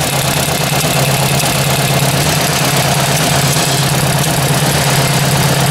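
Ford 800 tractor's four-cylinder engine idling steadily, with a tapping from under the valve cover that the owner puts down to a loose oil line banging on the cover's lid.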